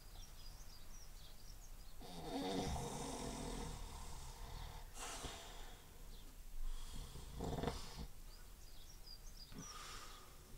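A man snoring in his sleep: two long snores, the first about two seconds in and the second near the end, with a short sharp snort between them. Faint bird chirps sound in the background at the start and end.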